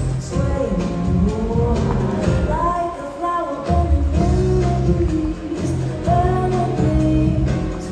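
Music with a sung vocal over a steady beat.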